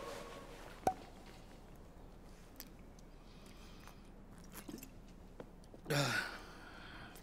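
A man drinking from a glass bottle: faint swallowing and small clicks, then about six seconds in a short voiced exhale after the swig that falls in pitch.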